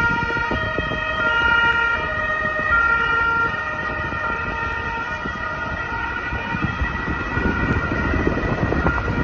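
Two-tone sirens of Carabinieri patrol cars in convoy, alternating between a high and a low note. Steady road and engine noise runs under them and grows louder near the end.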